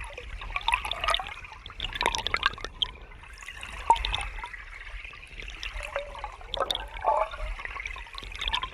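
River water flowing and splashing, a continuous rush broken by irregular small splashes and gurgles.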